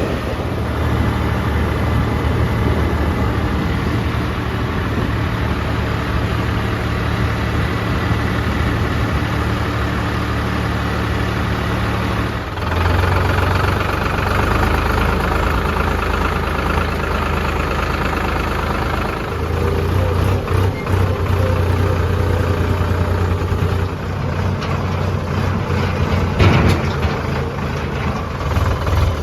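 Heavy diesel engine of earthmoving machinery running steadily at a low pitch, its engine note changing about 12 seconds in and again about 19 seconds in, with a brief sharp knock near the end.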